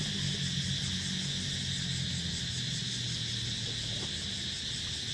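Steady, fast-pulsing high buzz of a tropical insect chorus, with a low hum underneath that fades in the second half.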